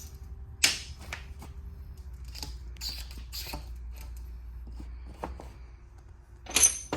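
Hydraulic hose parts being handled: a steel ferrule worked onto the end of the hose, with irregular small clicks, scrapes and clinks of metal, and a louder clatter near the end.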